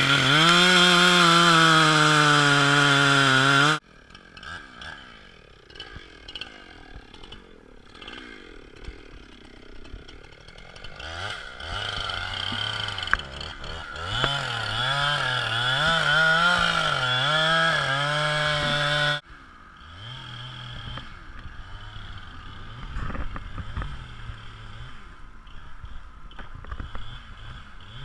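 Chainsaw engine running hard, then revving up and down in uneven surges as it cuts. It breaks off abruptly twice, leaving a fainter engine sound between and after.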